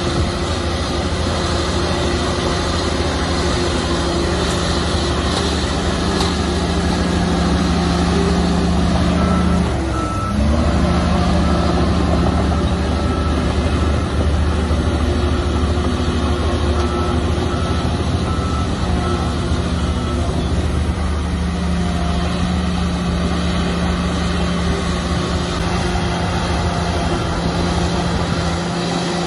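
Heavy diesel earthmoving machine running under load, its engine note dipping briefly about ten seconds in. A reversing alarm beeps about twice a second for roughly ten seconds in the middle.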